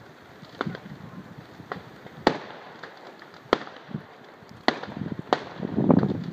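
New Year's Eve fireworks and firecrackers going off irregularly, with single sharp bangs a second or so apart. A denser run of crackling explosions builds near the end.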